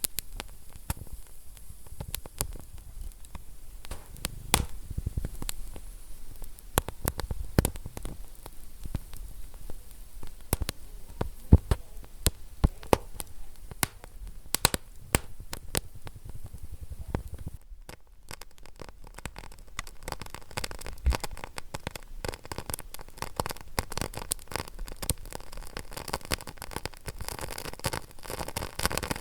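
Wood fire crackling, with irregular sharp pops over a low rumble of the flames. The sound dips for a moment about eighteen seconds in and comes back with more hiss.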